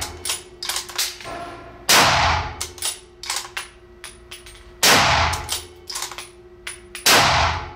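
Browning X-Bolt Hell's Canyon Speed bolt-action rifle in .30-06 Springfield, fitted with a radial muzzle brake, fired three times about two to three seconds apart. Each loud shot rings on in an indoor range, and the metallic clicks of the bolt being cycled fall between the shots.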